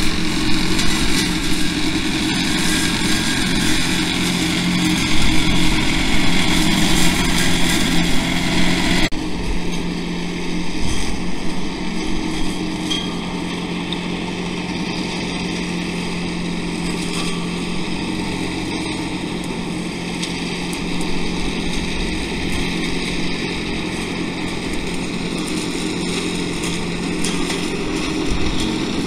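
Tractor engine running under load while its arm-mounted hedge-cutter flail head spins and cuts a roadside hedge, a steady mechanical drone. About nine seconds in the sound changes abruptly and becomes steadier and more distant.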